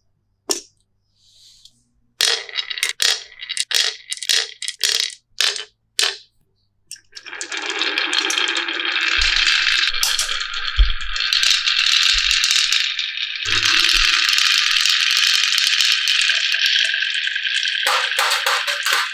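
Sharp separate clacks of pieces knocking on a wooden marble run, then from about seven seconds in a continuous clattering rattle as marbles or toys roll down the wooden track.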